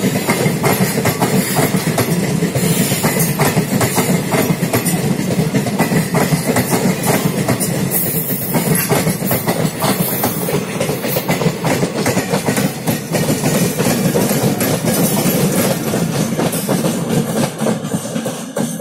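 Passenger coaches of the Swarna Jayanti SF Express rolling slowly past, their wheels clattering over the rail joints above a steady rumble. The sound falls away near the end.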